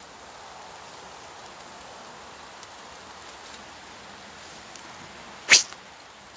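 Faint steady background hiss, broken about five and a half seconds in by a single short, sharp, loud sound.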